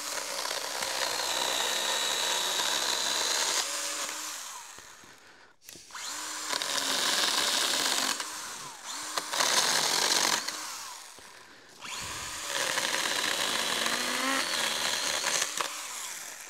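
Stihl GTA 26 cordless mini chainsaw's electric motor running and its chain cutting through dry elm branches. It runs in about four spells, stopping briefly between them and winding up in pitch each time it starts again.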